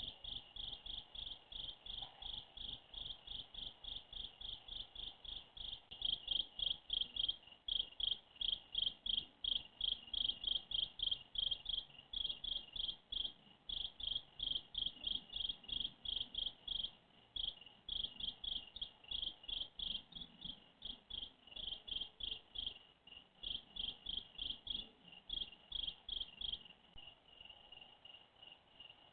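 Insect chirping in a steady rhythm, about three high-pitched chirps a second. Near the end the chirps stop and a fainter steady trill carries on.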